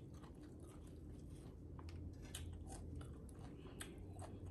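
Faint eating sounds: soft chewing and small scattered clicks as food is picked apart by hand on a plate, over a low steady hum.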